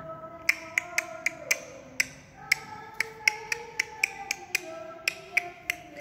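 Music playing, with held notes that change together and a quick run of sharp clicks, about four a second, marking a beat.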